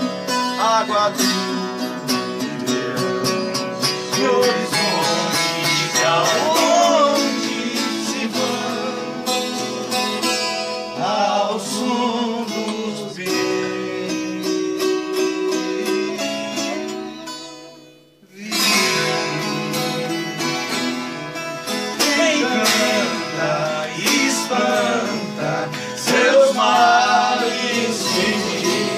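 Viola caipira and acoustic guitar playing a moda de viola, with singing over the strummed and picked strings. The music dies away briefly about two-thirds of the way through, then starts again.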